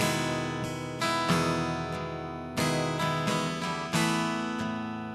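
Acoustic guitar played slowly, chords strummed about every second or so and left to ring out between vocal lines.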